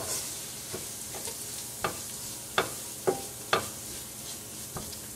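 Onions and spice powders sizzling in oil in a stainless steel frying pan as they are stirred with a wooden spatula, which knocks sharply against the pan several times.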